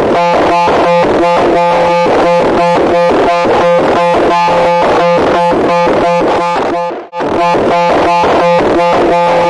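Harsh electronic buzzing tone, pulsing rapidly at about five beats a second, with a short break about seven seconds in.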